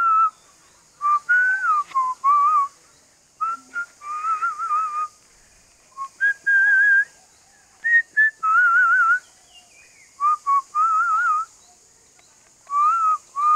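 Human whistling in short phrases with gaps between them, a clear high tone that wavers in quick trills.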